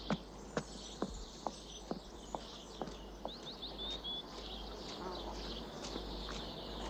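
Small birds chirping, with a run of sharp, evenly spaced taps at about two a second that stops about three seconds in.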